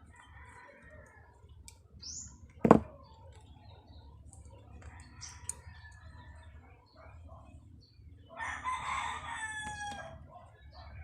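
A rooster crows once, about eight seconds in, a long call that falls in pitch at the end. Earlier there is a single sharp click, the loudest sound.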